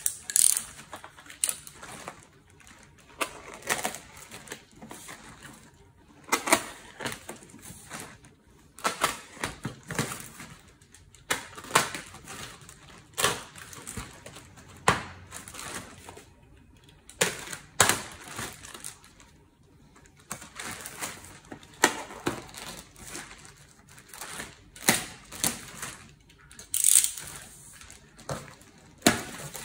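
Clear plastic wrapping around a folded ironing board being handled, crinkling and crackling in irregular sharp bursts with a few louder rustles.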